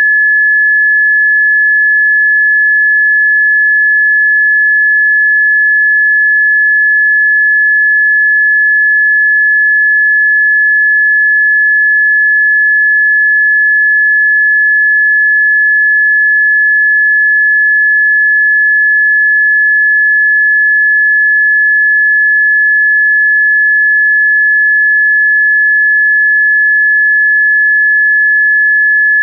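A single electronically generated pure sine tone, high-pitched and perfectly steady, with no change in pitch or loudness. It is a Rife-frequency therapy tone.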